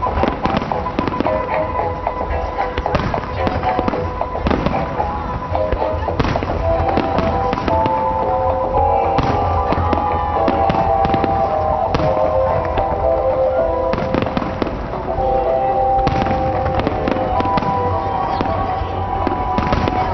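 Fireworks bursting in a rapid series of sharp bangs and crackles, over music played along with the display.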